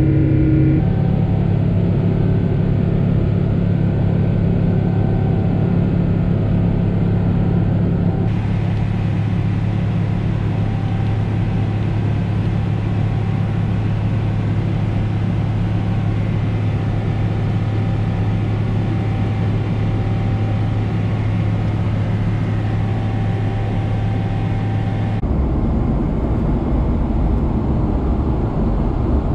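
Cabin noise of a Boeing 777-300ER in flight: a steady drone of jet engines and rushing air with a low hum. Its tone shifts abruptly a few times.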